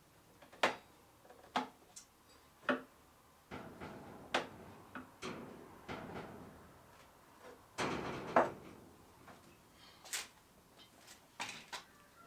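Workshop handling sounds on a wooden workbench: a string of sharp knocks and clicks as a metal speed square and wooden pieces are set down and shifted, with a few seconds of scraping in the middle.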